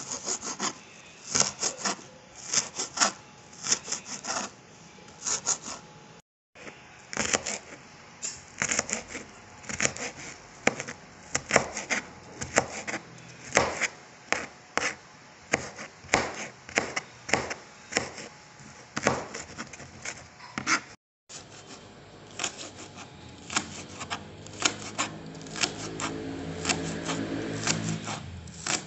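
Kitchen knife chopping ginger, garlic and spring onions on a white cutting board: quick repeated knocks of the blade against the board, about two to three a second, in uneven runs. The sound cuts out for an instant twice.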